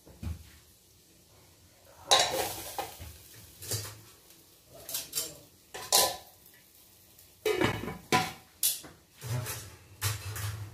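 Metal kitchenware clattering: spoons clinking against stainless steel bowls and a metal lid set onto a steel cooking pot, in a string of separate clanks spread over several seconds.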